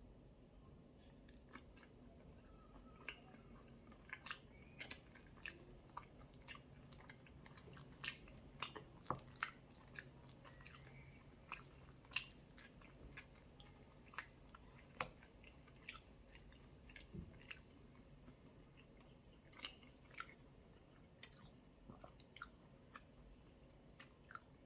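A person quietly eating chicken curry: soft chewing with many scattered sharp clicks at irregular intervals.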